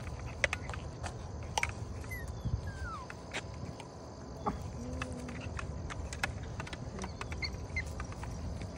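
A couple of short, faint whines from Yorkipoo puppies on leashes, one falling in pitch about two and a half seconds in and one brief one about five seconds in. Behind them are a low steady rumble and a thin, high insect drone.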